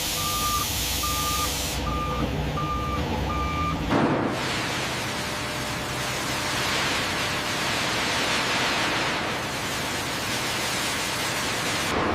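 A heavy vehicle's reversing alarm beeps five times at an even pace over a low engine rumble. About four seconds in, this cuts abruptly to a steady, loud machinery noise.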